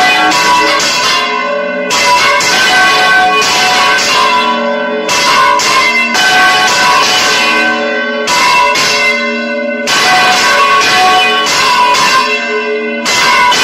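Church bells on counterweighted yokes rung in full rotation (volteo). Several bells swing right over and strike again and again, their clangs overlapping in a loud, continuous peal.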